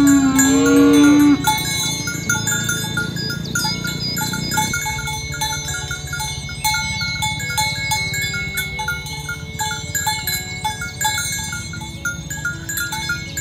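A cow mooing once, a long low call that ends about a second and a half in. Bell-like chiming follows, with short ringing notes at a few fixed pitches repeating irregularly.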